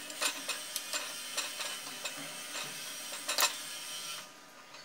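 Wooden chopsticks clicking and tapping against a metal pot and plate while boiled chicken and corn are lifted out of the stock: scattered light knocks, one louder near the end, over a faint steady hiss that stops shortly before the end.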